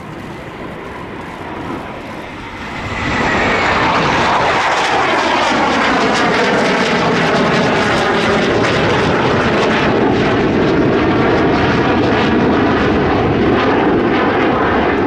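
Chengdu J-10 jet fighter engine noise swelling suddenly about three seconds in as the jets fly past, loud and sustained, with a whine that slides down in pitch as they pass.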